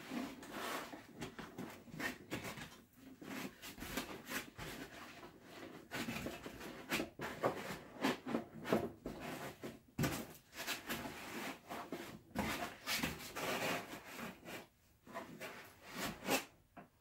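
Foam packing blocks being worked loose and pulled off a 3D printer: irregular rubbing and scraping of foam against the printer's case, with a few short knocks.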